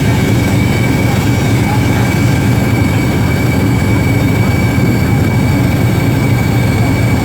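Argon (TIG) welding set running with a steady, loud hum and buzz and a thin high whine over it.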